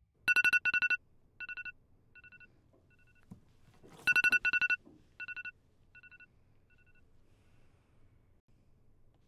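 Smartphone on a bedside table sounding its ringtone twice, about four seconds apart: each time a pair of loud electronic beeps followed by softer repeats that fade away.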